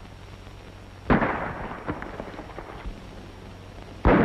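Two gunshots about three seconds apart, each sharp with a short ringing tail, over the faint steady hum of an old film soundtrack.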